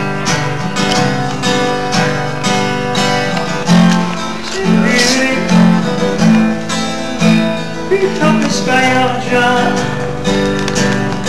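Acoustic guitar strummed in a steady rhythm, a busker playing chords with strong low notes.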